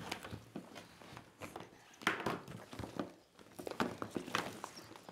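Cardboard cigarette packs being handled and set down on a tabletop: an irregular run of light clicks, taps and rustles.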